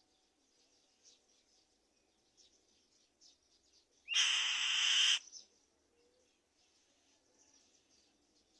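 Black-winged kite giving one harsh, rasping screech about a second long, near the middle, over faint background chirping.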